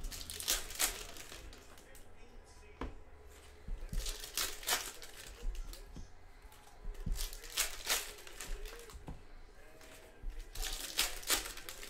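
Foil trading-card pack wrappers crinkling and tearing as packs are ripped open by hand, in short bursts every few seconds.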